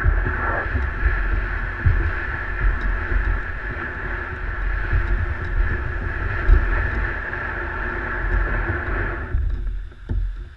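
Plastic sit-on-top fishing kayak being hauled across the beach sand, a steady scraping rumble that stops abruptly about nine seconds in.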